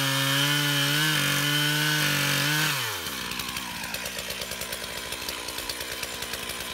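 Stihl 441 Magnum two-stroke chainsaw running at full throttle, cutting through a tree stump. About three seconds in the throttle is released, and the engine falls in pitch to a steady, quieter idle.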